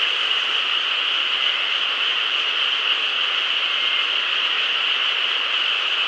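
Chorus of many frogs calling at once, blending into a dense, steady din without breaks.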